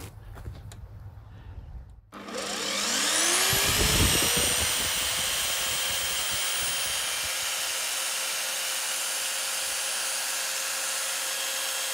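Small electric saw cutting a plastic drainage pipe, run from a portable battery power station. The motor starts about two seconds in with a whine that rises as it spins up, is loudest around four seconds, then runs steadily.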